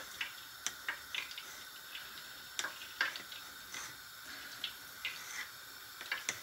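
Kitchen knife cutting thinly rolled dough into strips, the blade clicking and scraping against the counter in irregular light ticks, over a steady background hiss.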